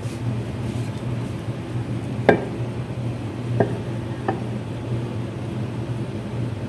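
Metal knocks and clinks as the aluminium crankcase cover of a Briggs and Stratton 19 HP engine is handled and set onto the block: one sharp knock about two seconds in, then two lighter ones over the next two seconds, over a steady low hum.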